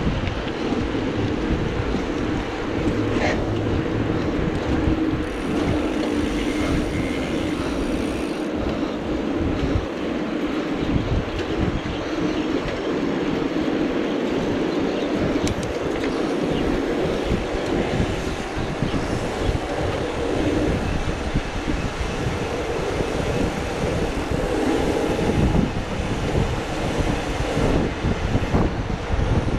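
Mountain bike rolling on asphalt in a pack of riders: a steady rolling rumble with a loose rattle.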